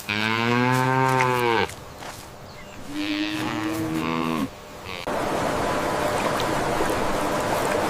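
A calf mooing twice: first a long, low call that rises and then falls, then a shorter, higher call that drops at its end. About five seconds in, a steady noise takes over.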